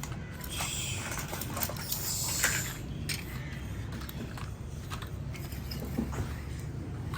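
Small toy cars being handled on a toy play set: scattered light plastic clicks and knocks, with two brief scraping rustles, one about half a second in and one around two seconds in.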